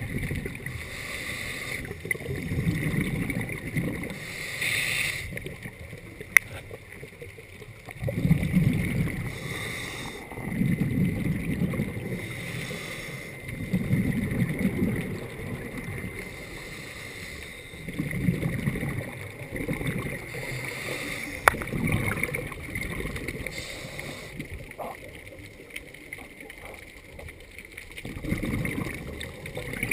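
Scuba diver breathing through a regulator underwater: bursts of exhaled bubbles gurgling every few seconds, with a longer pause near the end.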